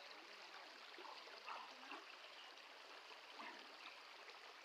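Floodwater flowing in a faint, steady rush.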